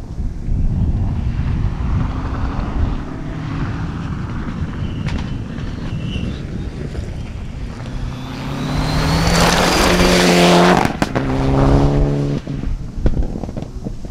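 Mitsubishi Lancer Evo VI rally car's turbocharged four-cylinder engine on full throttle along a gravel stage: faint in the distance at first, growing loud as it nears and passes about ten seconds in with gravel spraying. There is a sharp break in the engine note about eleven seconds in, then it pulls hard again and fades. Wind rumbles on the microphone throughout.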